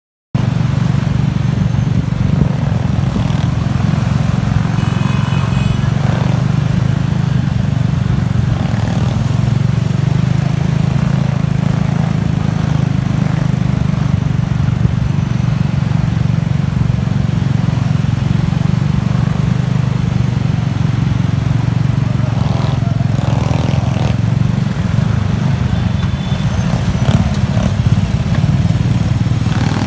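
Motor scooter engines running steadily in a pack of motorbikes riding through city traffic, heard as a continuous low hum from a moving bike, with a couple of brief high-pitched tones.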